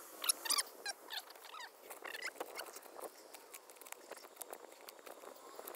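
Hands scooping and scraping loose soil and gravel at the bottom of a hole, with many small irregular crunches and clicks of stones.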